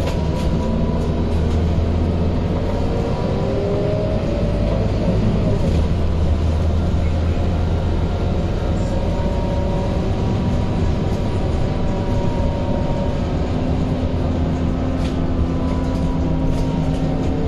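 Scania K230UB city bus heard from inside the passenger cabin while driving: a steady low drone from its five-cylinder diesel engine with the loud whine of its ZF automatic gearbox drifting up and down in pitch over it.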